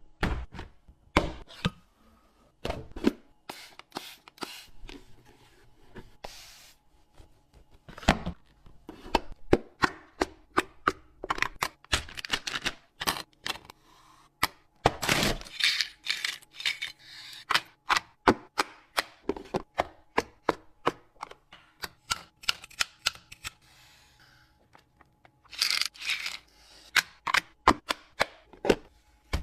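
Small items, cans, bottles or containers, being handled and set down in a mini fridge: a long run of sharp, irregular clicks, taps and knocks, with a few short bursts of rustling or tearing packaging.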